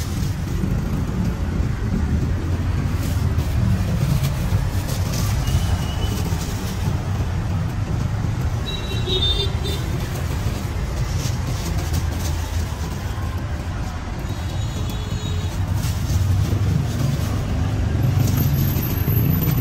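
Road traffic, mostly motorbikes, running past in a steady low rumble. A short high beep sounds about nine seconds in.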